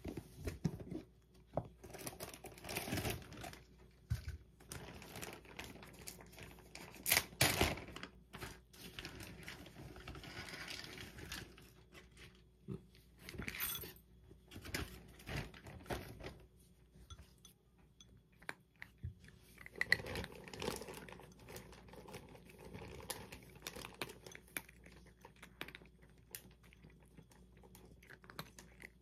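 A tabby cat eating from a glass bowl, chewing its food in irregular bursts with short pauses.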